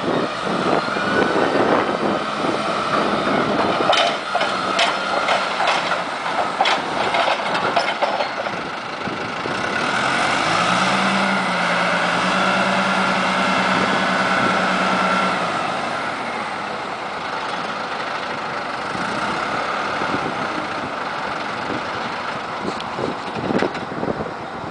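Caterpillar RT80 telescopic forklift's diesel engine running as the machine drives, with a run of knocks and rattles in the first several seconds. About halfway through the engine note steadies and gets louder for roughly five seconds, then eases back.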